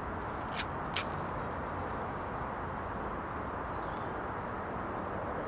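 Steady outdoor background rumble, with two sharp clicks about half a second apart near the start as a knife works at a wax candle, and faint bird chirps a few seconds in.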